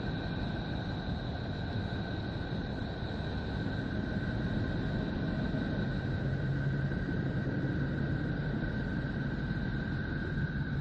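Steady rumbling drone with two thin, high tones held steady over it, and a low hum joining about six seconds in: a 'space sound', electromagnetic signals recorded by a space probe and converted into audio.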